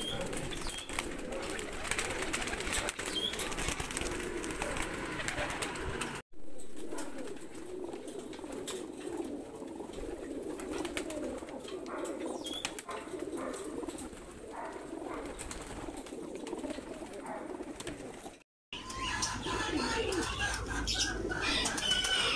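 Mookee pigeons cooing in a loft cage: a continuous wavering chorus of low coos. The sound drops out briefly twice, about six seconds in and again near the end.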